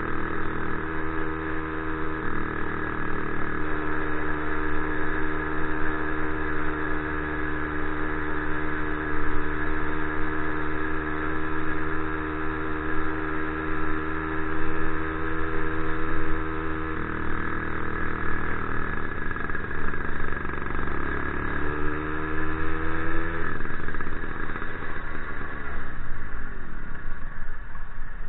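Motorized bicycle's small engine running at a steady speed for most of the time. About three quarters through, its note rises briefly, then falls away over the last few seconds as the engine slows.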